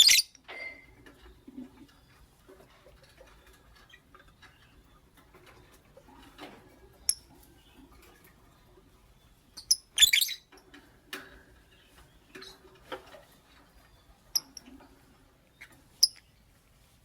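Lovebirds giving short, sharp, high-pitched chirps now and then. The loudest come at the very start and about ten seconds in, with faint small clicks and taps in between.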